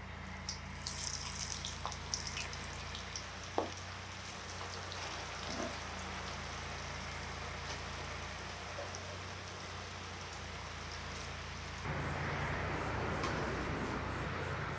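Raw jackfruit sticks deep-frying in hot oil: a steady sizzle and crackle of bubbling oil, with a few light clicks in the first few seconds. About twelve seconds in, the sizzle grows louder.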